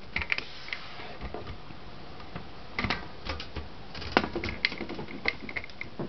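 Irregular clicks and knocks from a 1970s Montgomery Ward Escort 33 portable typewriter being turned around and handled, in small clusters with a few sharper knocks about three and four seconds in.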